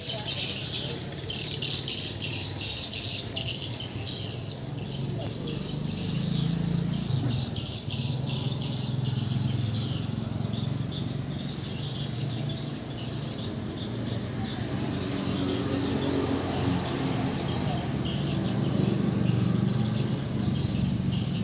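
Small birds chirping and twittering in quick, dense bursts, busiest in the first half and again near the end, over a steady low hum.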